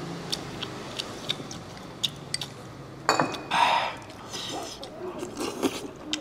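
Chopsticks clicking and tapping against a small porcelain bowl as food is picked out of it, with a short noisy slurp a little over three seconds in.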